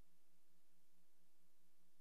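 Near silence: an empty soundtrack with only faint hiss and a low, steady hum.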